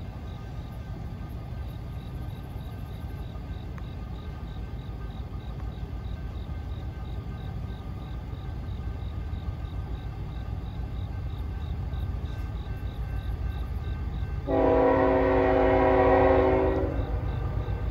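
An approaching freight train's low rumble grows steadily louder while a crossing bell dings faintly about twice a second. About fourteen and a half seconds in, the locomotive's air horn sounds one long blast of about two and a half seconds.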